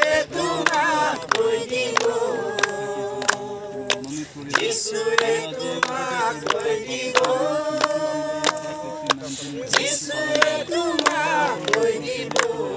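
Singing voices carry a worship song's melody over a steady beat of sharp clicks, about two or three a second.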